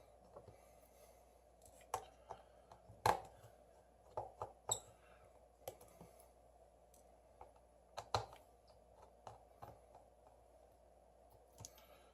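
Small repair tools clicking and tapping against a smartphone as its screws are taken out: faint, scattered clicks at irregular times, the loudest about three seconds in.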